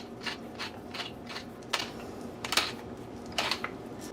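Cracked black pepper being dispensed onto raw chicken thighs: a run of short, crisp crunchy strokes, about three a second at first, then slower and sparser.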